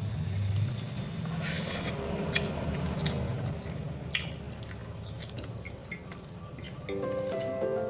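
Bare fingers squishing and kneading soft cooked rice into a wet curry sauce on a metal plate, with a few light clicks against the plate. Music comes in near the end.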